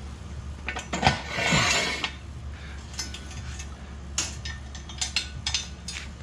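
Metal clinks and clanks from car jacks being worked and moved as the car is lowered off them. A louder rushing noise comes about a second in, over a steady low hum.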